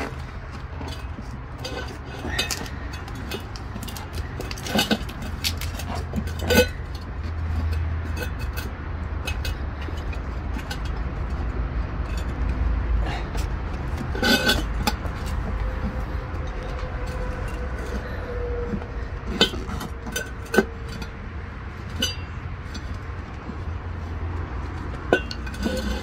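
Scattered knocks and light clinks from a small steel wheel rim and rubber tire being handled while an inner tube is worked inside, over a steady low rumble.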